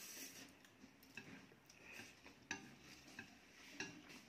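Faint, scattered clicks of chopsticks tapping and scraping on ceramic plates as noodles are picked up and eaten, with a short slurp of noodles at the start.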